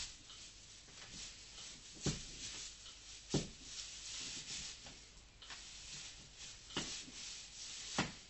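A sleeping horse's legs kicking as it dreams: scratchy rustling with four sharp knocks, about two, three and a half, seven and eight seconds in.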